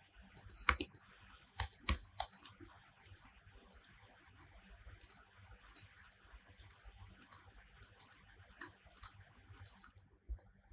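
Computer keyboard keystrokes and mouse clicks: a few sharper clicks in the first couple of seconds, then lighter scattered clicks over a faint hiss.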